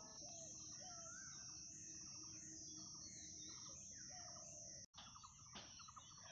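Near silence: faint outdoor background with a steady high hiss and a few faint short chirps, typical of distant birds.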